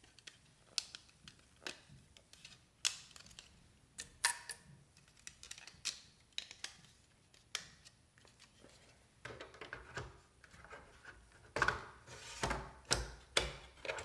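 Plastic clicks and snaps from a Synology DS418play's tool-less drive tray: a hard drive is clipped into the tray, and the tray is slid into the bay and pushed home, with handling rustle between. The clicks come thicker, with a few low knocks, in the last few seconds.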